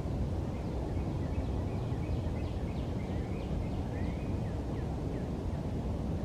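Pileated woodpecker calling: a faint run of quick repeated notes lasting about four seconds. Under it runs a steady low rumble.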